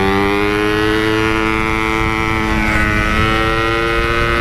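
Yamaha RX-King 135cc two-stroke single-cylinder engine through a Packing Power aftermarket exhaust, pulling steadily in gear with the revs climbing slowly.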